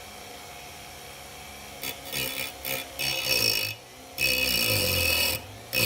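Rotary tool on slow speed, its motor humming quietly through the flex shaft, then its grinding disc cutting into a ring in about six harsh, hissing bursts starting nearly two seconds in. The motor's pitch drops under each cut.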